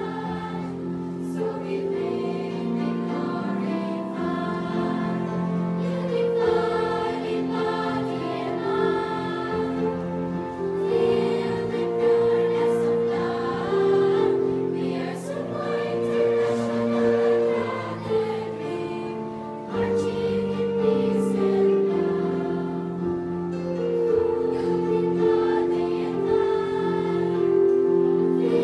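Choir singing a school hymn with musical accompaniment, going into the chorus 'Unified in body and mind, filled with pureness of life'.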